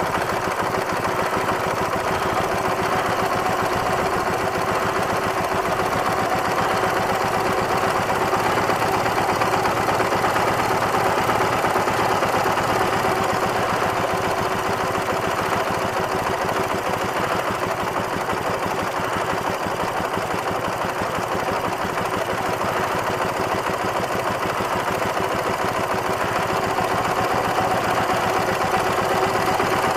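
Ural motorcycle's flat-twin engine idling steadily while its ignition timing is turned by hand; with the timing set toward late it loses revs, so the idle sags a little and picks up again.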